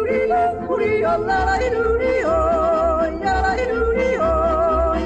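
Background music: a yodeling song whose voice leaps between low and high notes, with vibrato on the held notes, over a repeating bass pulse.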